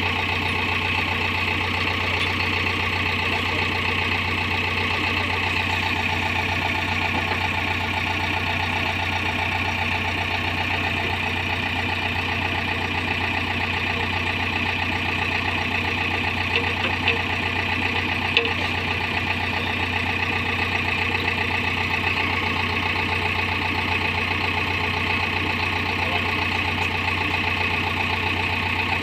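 JCB backhoe loader's diesel engine idling steadily, with a few faint taps partway through.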